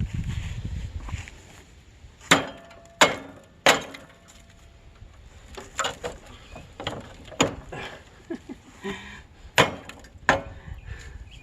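Hatchet blows chopping at a rusty, crunchy part to knock it loose: about eight sharp, irregularly spaced strikes, three of them in quick succession a couple of seconds in.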